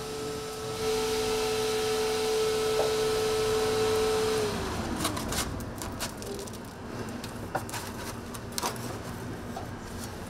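Small electric fan of a waffle cooling stand humming with a steady tone, then winding down in pitch about four and a half seconds in. After that, paper rustling and light clicks as a bubble waffle is slipped into a paper cone.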